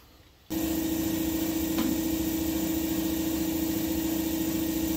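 A motor running steadily: an even mechanical drone with one strong low-pitched hum. It cuts in suddenly about half a second in, and there is a single light click about a second later.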